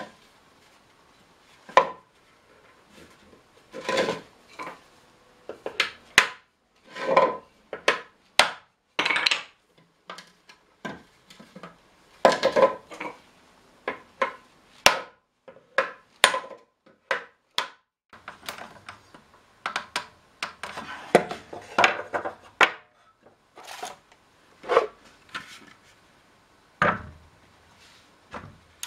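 Hammer blows on a hoop driver, knocking the steel hoops down onto a small cherry-wood barrel to tighten the staves: irregular wood-and-metal knocks, some coming in quick pairs, a few ringing briefly.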